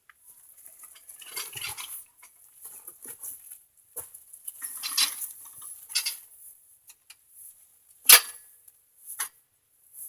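Metal clattering and scraping from handling the steel saw stand: irregular clinks and rattles, with one sharp loud clank about eight seconds in and a lighter one a second later.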